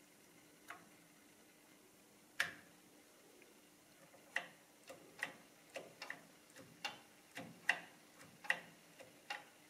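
Keys of an ELKA 6521 electronic calculator clicking as they are pressed. There is one louder click, then a run of clicks about two a second as the a^n power key is pressed over and over, raising the displayed number to higher powers.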